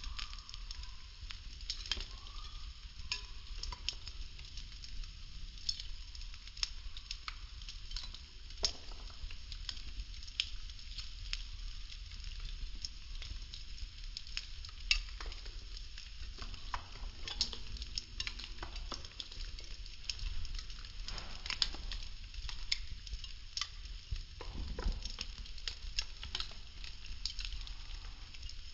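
Wooden popsicle sticks burning: a steady hiss over a low rumble, broken by frequent sharp crackles and pops at irregular intervals.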